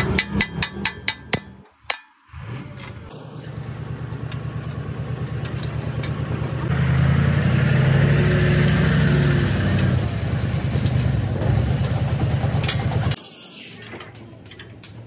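A quick run of sharp knocks, about six or seven, in the first second and a half. After a short break comes a steady engine running, louder in the middle, which cuts off abruptly about two seconds before the end.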